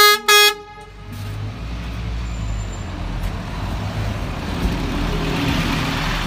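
Scania city bus running, its low engine rumble and road noise building over the first few seconds and then holding steady. At the very start come two short, loud tooting tones.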